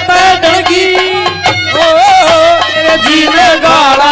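Live Haryanvi ragni music: a harmonium-style melody of held, bending notes over a steady hand-drum beat.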